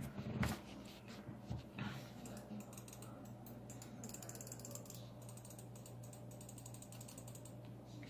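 Faint scattered clicks and taps, with a short run of light rapid ticking in the middle, over a steady low hum.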